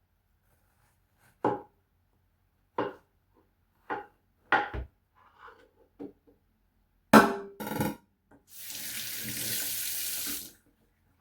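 Several separate knocks and clatters of kitchen things being handled, the loudest two close together, then a kitchen tap running for about two seconds and shut off.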